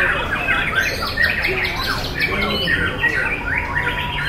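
White-rumped shamas (murai batu) singing in a contest, several birds at once: a dense, unbroken tangle of fast whistled notes and rising and falling sweeps.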